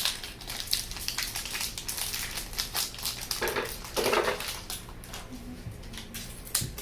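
Plastic toy packaging being opened and handled: irregular crinkling, crackling and light clicks and taps.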